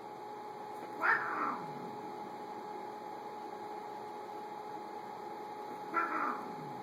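A house cat gives two short cries about five seconds apart, each falling in pitch, while two cats spar and swat at each other. A steady low hum runs underneath.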